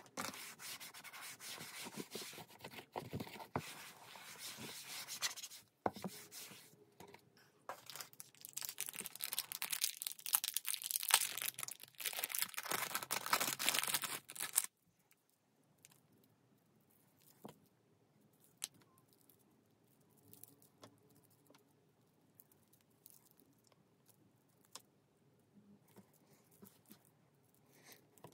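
A paper wipe rubbed back and forth over a wood-grain desktop, scrubbing in strokes with short pauses. About fifteen seconds in it stops abruptly, leaving only a few faint small ticks.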